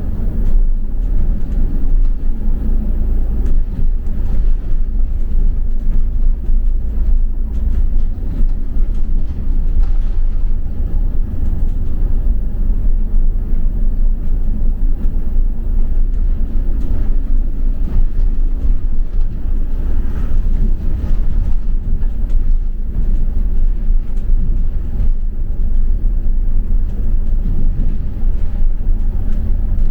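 Steady low rumble of a double-decker bus running along a street, its engine and road noise heard from on board.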